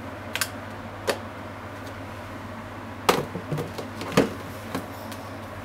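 Ground pork frying in oil in a pan, a steady sizzle, with a few sharp knocks of wooden chopsticks against the pan: two early on, then a cluster of four from about three seconds in, the loudest near three and four seconds.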